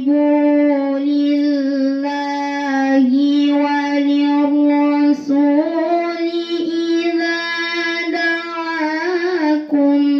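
A girl reciting the Quran in melodic tilawah style into a microphone, holding long notes with wavering, trilling ornaments. She pauses briefly for breath a few times and steps the pitch up a little about halfway through.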